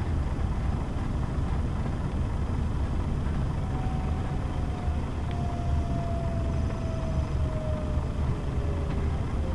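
Scania K124 city bus heard from inside the passenger cabin: its diesel engine runs with a steady low rumble as the bus drives along. A faint whine comes in a few seconds in and slowly falls in pitch.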